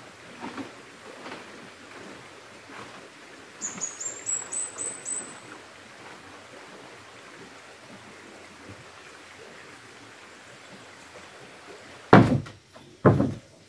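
Shallow stream running over rocks, a steady rushing. About four seconds in, a bird gives a quick run of about six high chirps, and near the end two loud thumps sound.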